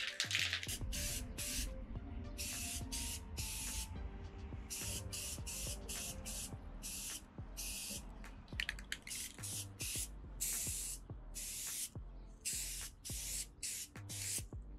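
Aerosol spray can hissing in many short bursts, each under a second long, as a glossy finishing coat is sprayed onto a painted 3D-printed helmet. Background music plays underneath.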